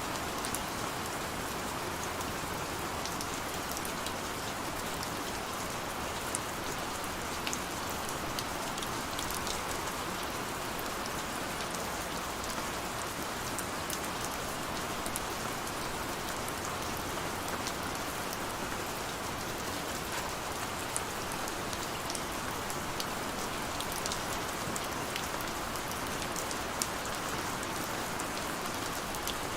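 Steady rain falling, with scattered sharper drop ticks standing out against the even patter.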